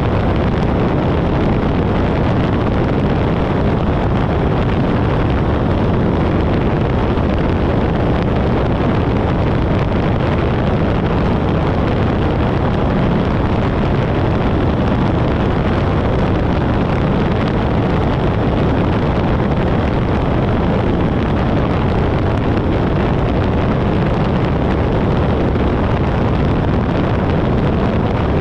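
Light aircraft in flight heard through a camera mounted on the outside: a steady, unbroken rush of wind on the microphone mixed with engine noise.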